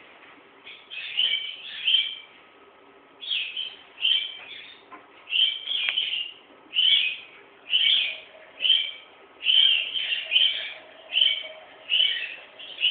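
Eclectus parrot giving short repeated calls, about one or two a second, fairly loud and high-pitched.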